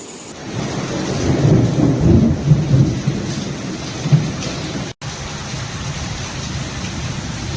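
Thunder rumbling in rolling swells over steady rain, loudest in the first four seconds or so. The sound cuts out for an instant about five seconds in, then the rain continues with a lower rumble.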